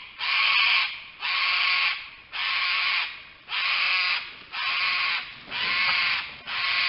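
Cicadas calling in a steady pulsing rhythm: a loud, harsh buzz that swells and breaks off about once a second, seven pulses in a row.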